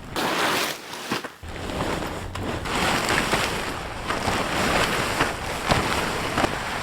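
Wind blowing hard through a snowstorm, a steady rushing noise, with a low rumble of wind buffeting the microphone from about one and a half seconds in.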